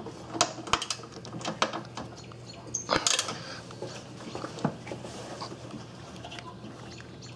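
Ratchet wrench tightening a bolt: a run of quick ratchet clicks and light metal clinks of the tool, thinning out after about three seconds.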